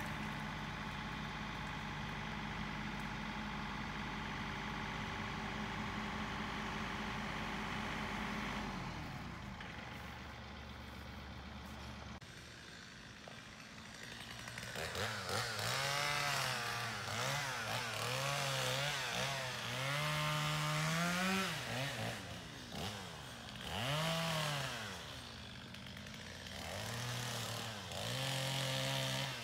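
John Deere compact tractor's diesel engine running steadily under load as it drags a fallen tree on a rope. About a quarter of the way through it drops away, and later an engine revs up and down over and over, roughly every half second.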